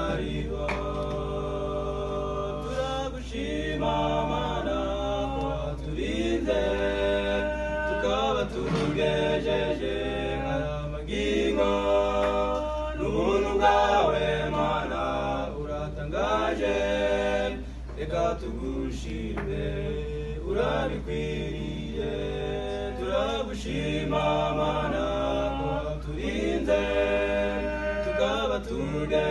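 Small male vocal group singing a cappella in harmony, a Kinyarwanda song held in sustained chords that move in phrases of a few seconds with short breaths between. A steady low hum runs underneath.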